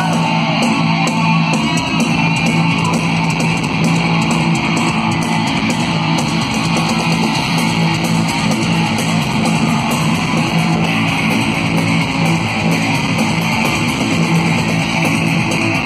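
Electric guitar and bass guitar played together through stage amplification in a heavy metal guitar-and-bass solo, loud and continuous.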